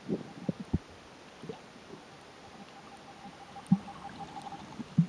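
Water heard through a camera held just under the sea surface: scattered muffled thumps and gurgles of moving water against a faint steady hum, the loudest thumps near the end.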